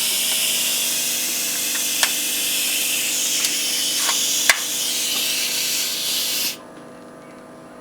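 Compressed air hissing steadily from a leak in an air hose or fitting, with a few sharp clicks. The hiss cuts off suddenly about six and a half seconds in.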